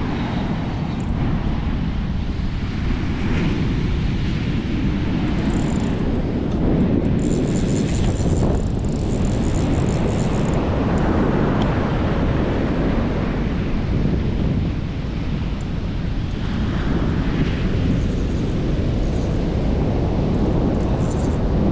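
Strong wind buffeting the microphone in a steady low rumble, over breaking surf.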